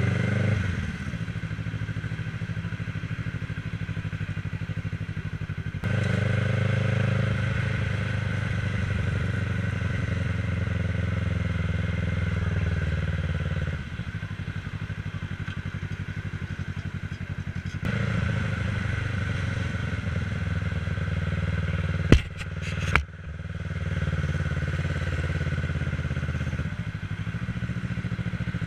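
Kawasaki ER-6n's parallel-twin engine running as the motorcycle is ridden, the engine note swelling for two longer stretches and dropping back between them. Two sharp knocks come about three quarters of the way through.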